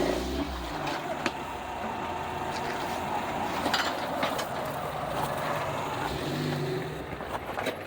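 Off-road vehicle engine running at low speed on a rocky trail climb, with scattered sharp knocks and crunches.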